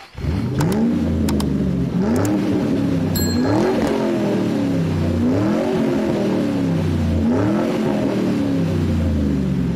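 Car engine revving again and again, its pitch climbing and sinking back about every two seconds. A few sharp clicks sound in the first two seconds, and a short high ding about three seconds in.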